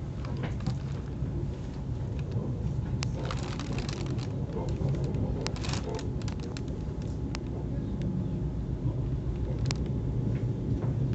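Cabin of a Moscow Central Circle Lastochka electric train in motion: a steady low running rumble with scattered clicks and knocks from the wheels and car body.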